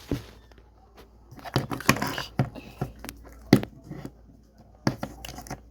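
Small plastic toy figures being handled: a string of short, irregular clicks and knocks with some rubbing, the loudest about three and a half seconds in.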